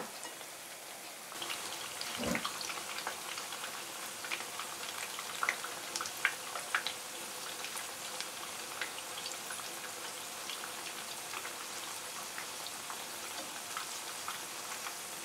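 Almond-crusted chicken pieces frying in hot oil in a pan: a steady sizzle with scattered crackles and pops, and a soft knock about two seconds in.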